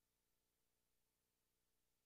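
Near silence: only a very faint, steady electrical hum and hiss.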